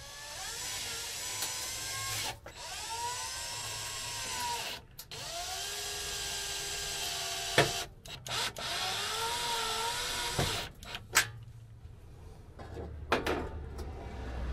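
Cordless drill driving screws to fasten a stove top down: about four runs of a couple of seconds each, the motor whine rising and falling in pitch as each screw goes in, with short clicks between runs and a couple of brief bursts near the end.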